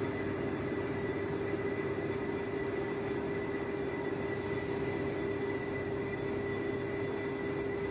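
Large metal lathe running steadily with its chuck and workpiece spinning: an even machine noise carrying a constant mid-pitched hum and a thin, high, steady whine.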